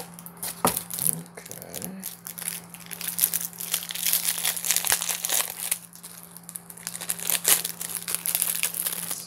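Clear plastic wrapper around a stack of trading cards crinkling and tearing as it is pulled open by hand, a dense, irregular run of crackles throughout. A faint steady hum runs underneath.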